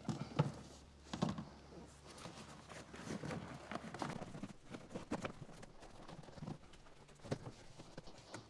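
Irregular light knocks and taps, several in quick succession at the start, then sparser, with a few more near the end.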